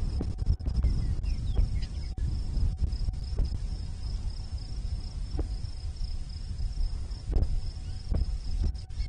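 Insects trilling steadily at a high pitch, with wind rumbling on the microphone and a few brief faint sounds in between.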